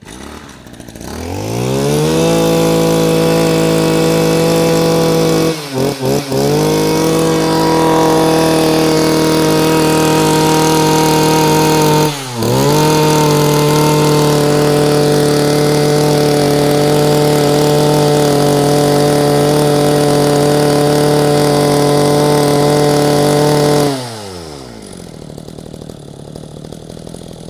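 Mitsubishi TL26 brush cutter's 26cc two-stroke engine opened up from idle to full throttle and held at a steady high pitch. It dips briefly twice, about six and twelve seconds in. Near the end the throttle is released and it winds down to a low, quieter run.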